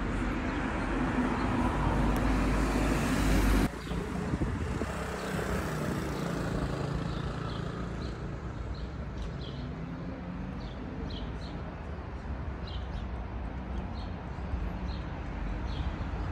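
Car traffic on a town street: a loud, even rush of passing cars that cuts off suddenly about three and a half seconds in, then quieter steady traffic noise with scattered short high chirps.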